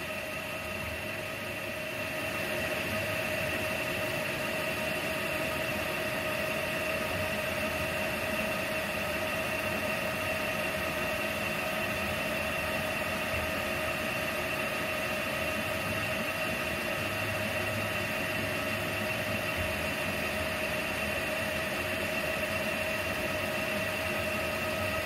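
Industrial Hobbies CNC square column mill running a test program without cutting: the spindle spins with a steady whine while the axes move the table at 40 inches per minute. The sound gets a little louder about two seconds in.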